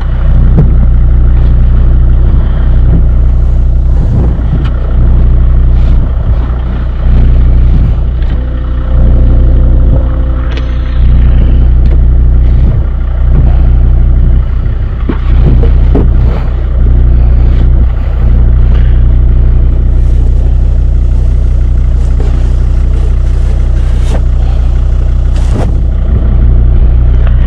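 Volvo XC90 engine idling steadily, its level swelling and dipping every second or two, with scattered clicks and knocks over it.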